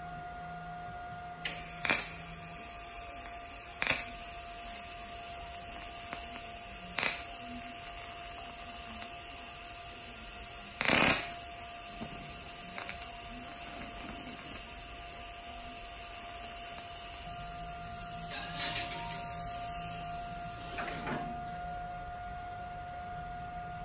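TIG welding arc hissing steadily as a patch is welded onto a thin steel fuel tank, starting about a second and a half in and stopping near the end, with a few sharp clicks along the way, the loudest about halfway through.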